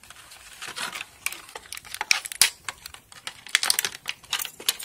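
Thin clear plastic blister tray crinkling and crackling in quick, irregular clicks as stainless steel tweezers are pried out of it.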